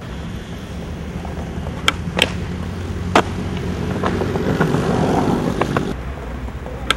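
Skateboard wheels rolling over concrete with a steady rumble that grows louder in the middle, broken by sharp wooden clacks of the board: two close together about two seconds in, another a second later, and one near the end.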